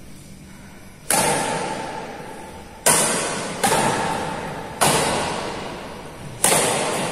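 Badminton rally: a shuttlecock struck back and forth with rackets, five sharp hits starting about a second in, spaced one to two seconds apart. Each hit rings on in the echo of a large hall.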